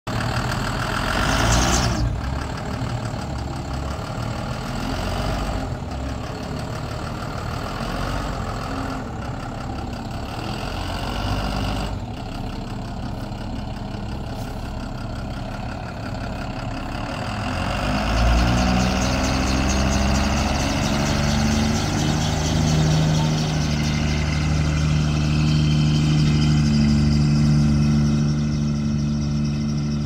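1991 Blue Bird TC2000 school bus's six-cylinder diesel engine idling. About eighteen seconds in it picks up and the bus pulls away, the engine note growing louder and rising steadily.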